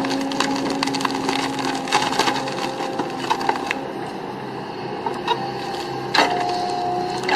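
Wood cracking and splintering in many sharp snaps while heavy machinery runs with a steady engine note underneath.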